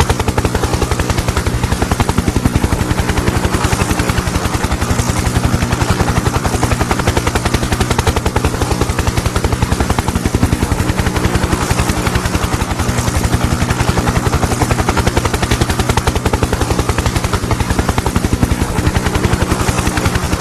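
Bell UH-1H Huey helicopter running steadily: a rapid, even beat of main-rotor blade slap over a continuous engine drone.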